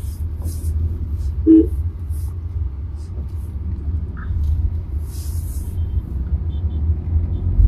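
Steady low rumble of engine and road noise inside the cabin of a 2024 Tata Nexon with a 1.2-litre petrol engine and six-speed manual, driven slowly in second gear. A brief low thump comes right at the end.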